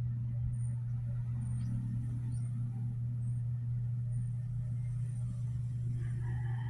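Steady low hum, with a faint high chirp repeating about once a second.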